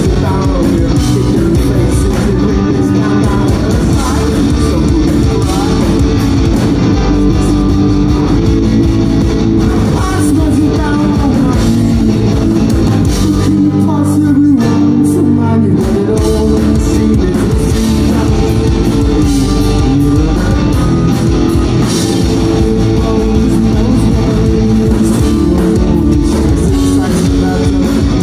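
Live rock band playing loudly through a concert PA: electric guitars, bass guitar and drum kit, with sung vocals at times.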